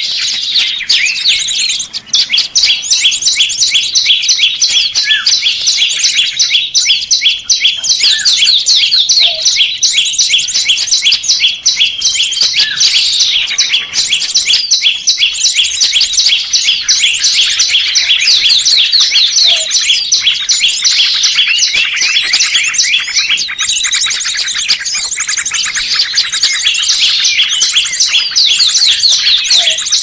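Dense, continuous high-pitched songbird chirping and trilling, many quick notes a second, from a birdsong lure recording used to attract small birds for trapping. A short lower note comes about every ten seconds.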